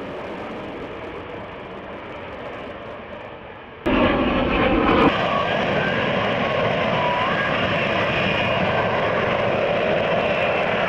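F-35 fighter jet's engine running as the jet flies low and slow overhead, a steady jet noise. About four seconds in it jumps suddenly louder and then holds steady, with a faint whine.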